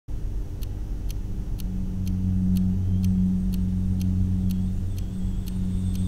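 Steady low hum with a light, regular tick about twice a second.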